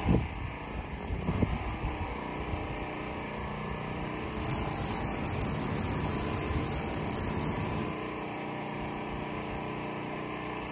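Two sharp thumps within the first second and a half, then a handheld flamethrower fed by a backpack tank and hose fires a long jet of burning fuel: a loud, hissing rush lasting about three and a half seconds that cuts off suddenly.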